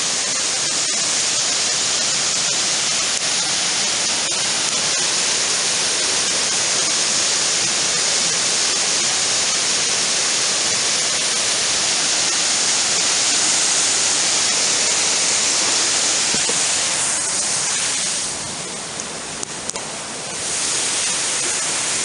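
Waterfall pouring into a rocky stream: a loud, steady rush of white water. It drops quieter for about two seconds near the end, then comes back up.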